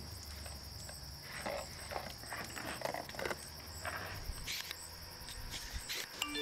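A rag scrubbing the soapy, knobby tread of a mountain-bike tyre in several short rubbing strokes. Crickets chirp steadily behind it.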